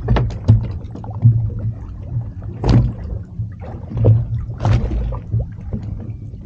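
A fishing boat drifting: a steady low rumble with water sloshing and slapping against the hull in short splashes, several times over a few seconds.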